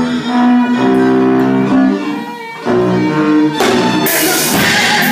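Instrumental passage of a rock song with no vocals: held notes from bowed strings and guitar, then about three and a half seconds in a louder, fuller band passage comes in suddenly.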